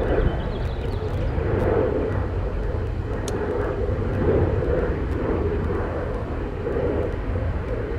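Micro FPV quadcopter with 1204 5000KV motors on 3S buzzing steadily at a distance as it cruises, the propeller hum swelling and fading a little, over a low rumble.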